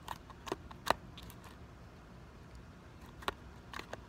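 Sticky glue slime being squeezed and pulled by hand, giving scattered small clicks and squelches: a few in the first second, then a couple more near the end.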